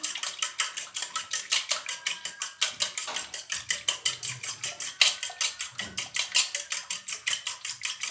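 An egg being beaten into milk with a utensil in a small stainless-steel bowl, the utensil clinking against the metal side in a fast, steady rhythm of about six or seven strokes a second.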